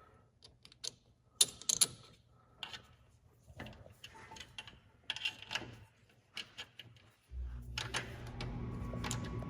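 Irregular metallic clicks and clinks of hand tools and bolts as an alternator is bolted onto its engine bracket. About seven seconds in, a steady low hum starts suddenly and keeps going.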